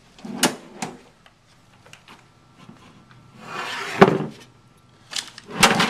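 Clunks and knocks of computer tower cases being handled on a counter, with a short scraping slide about four seconds in that ends in one sharp loud knock, and a couple more knocks near the end.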